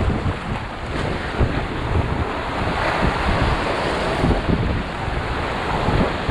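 Flooded river water rushing and churning, with wind buffeting the microphone in low gusts.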